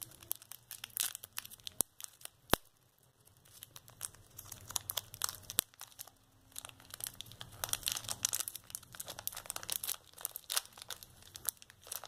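Crinkly wrapper of a small squishy package crackling and tearing as it is picked open by hand, with a few sharp clicks in the first half.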